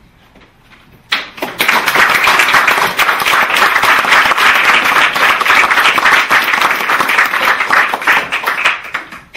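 A small seated audience applauding. The clapping starts suddenly about a second in, holds steady and dense, and dies away just before the end.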